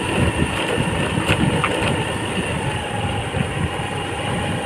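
Small motor scooter's engine running steadily while riding, with a gusty rumble of wind on the microphone.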